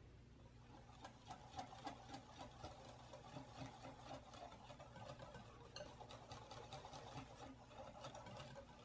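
Stainless steel balloon whisk beating creamy cheesecake batter in a glass bowl: quick rhythmic strokes, the wires ticking against the glass and slapping through the wet batter. It starts about a second in and stops just before the end.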